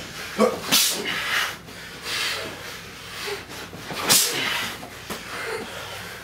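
Heavyweight boxers sparring: short, sharp hissing exhalations with their punches, a dozen or so over a few seconds, mixed with the thuds of gloves landing, the loudest about a second in and near the middle.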